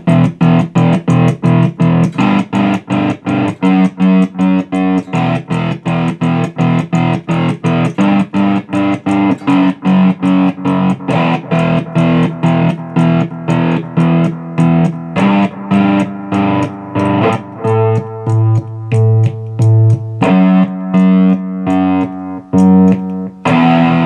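Electric guitar chords chopped on and off several times a second by a momentary kill switch tapped in time, giving a stuttering tremolo effect.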